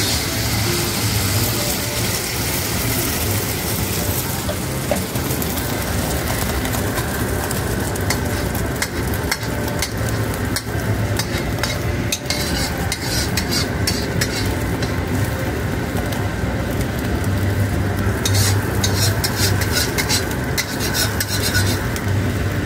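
Hot oil, then an egg, sizzling in a carbon steel wok, with a steady low rumble underneath. In the second half come many sharp clicks and scrapes of a metal spatula against the wok.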